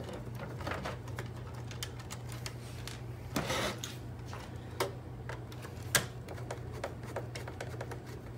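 Scattered small clicks and taps of a hand screwdriver and fingers on the plastic chassis of a robot vacuum as its motherboard screws are backed out. A brief scraping rustle comes about three and a half seconds in, and a sharper click near six seconds, over a steady low hum.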